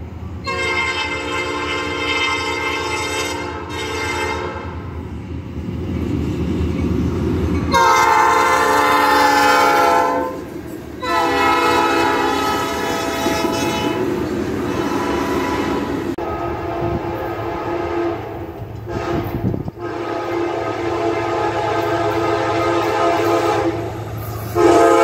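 Diesel freight locomotive's air horn sounding several long blasts at a grade crossing, with the low rumble of the train between blasts. Near the end a louder horn blast begins.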